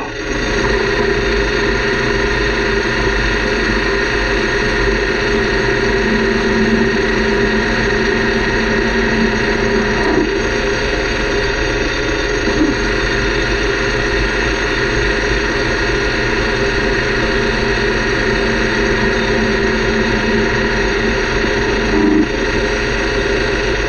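Metal lathe running under power, cutting a metal gear blank down to thickness: a loud, steady whine of gearing and motor mixed with cutting noise, starting suddenly and stopping just before the end.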